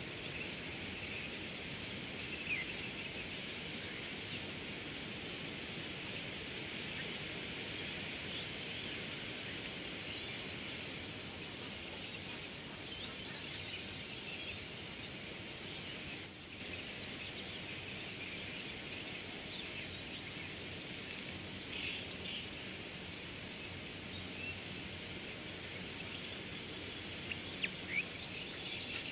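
Steady insect chorus: a continuous high-pitched trill from many insects, with a few faint short bird chirps now and then.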